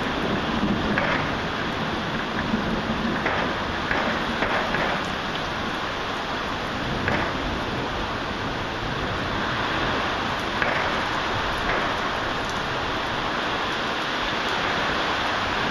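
Heavy rain pouring down steadily during a thunderstorm: an even, dense hiss of falling rain.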